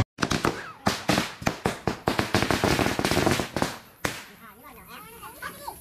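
A string of firecrackers going off in a rapid run of sharp cracks for about four seconds, then stopping; voices are heard faintly afterwards.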